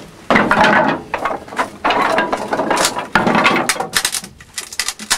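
Wooden planks clattering and scraping against each other and the steel firehole as kindling is loaded into a steam locomotive's firebox, in about three loud bursts of knocking.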